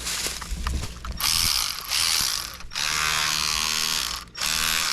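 Cordless power ratchet running in three long bursts as it drives in the starter's mounting bolts, a whirring motor with a clicking ratchet mechanism.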